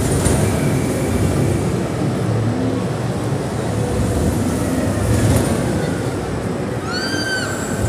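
Roller coaster train rolling along its steel track with a loud, steady low rumble. Near the end there is a short, high shriek.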